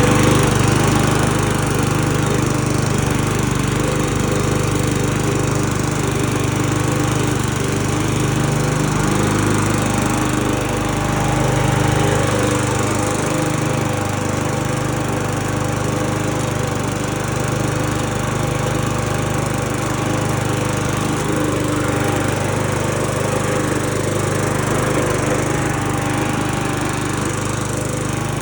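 Sabo 43-4 TS walk-behind lawn mower's engine running steadily while cutting grass.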